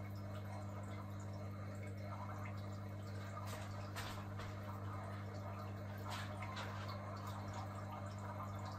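Steady low hum with a few faint drips of water, between about three and a half and six seconds in, as a wet hand works over the open aquarium.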